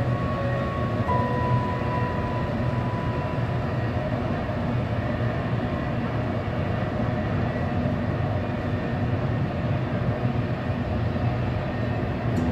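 Double-stack intermodal freight train passing, a steady rumble of container cars rolling on the rails. A thin high squeal sounds over the first few seconds.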